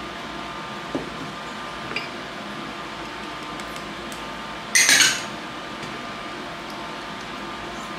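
Kitchen handling sounds while seasonings go into a plastic tub of dressing: two small clicks, then about five seconds in a brief loud clatter of a glass spice jar. A steady faint hum runs underneath.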